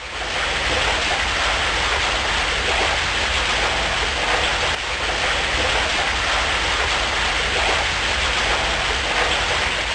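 Water rushing and splashing steadily: a dense, even hiss without a break.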